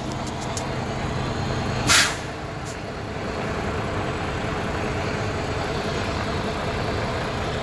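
A stopped vehicle's engine idling steadily, heard from inside the cab, with one short hiss about two seconds in.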